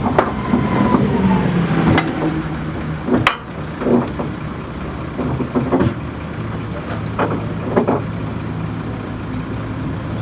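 Steady low hum of an idling engine, with scattered sharp clicks and knocks.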